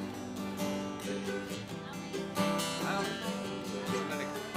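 Acoustic guitar playing the instrumental introduction of an old-time country song, in regular strums with picked notes.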